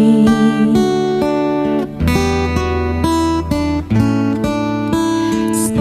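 Background music from a Javanese-language pop song in an instrumental break between sung lines, carried by plucked and strummed guitar chords that change about every half second.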